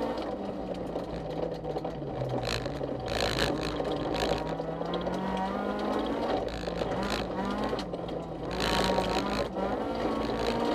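Honda CRX rally car's engine heard from inside the cabin while driving a stage, over steady tyre and road noise. Its pitch drops over the first few seconds as the car slows, climbs again as it accelerates, then dips and rises once more near the end.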